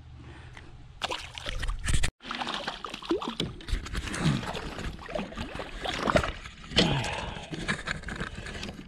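Water sloshing and gurgling around a kayak hull, with irregular splashes and knocks and the rustle of clothing and gear being handled.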